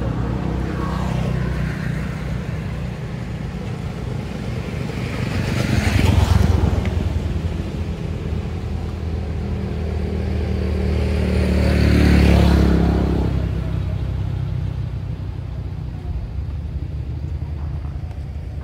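Steady low motor-vehicle engine hum, with two vehicles passing by: one swells and fades about six seconds in, the other about twelve seconds in.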